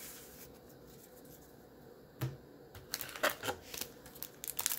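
Foil wrapper of a baseball card pack crinkling as it is handled by hand, after a single tap about two seconds in; the crackling grows busier toward the end.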